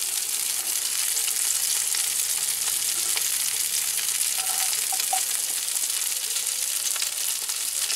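Fluke (summer flounder) fillets frying skin side down in a cast-iron skillet: a steady sizzling hiss.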